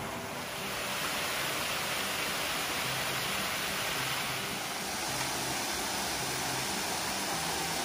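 Steady rush of falling water from a rocky forest creek's cascades and small waterfalls, growing a little louder about a second in.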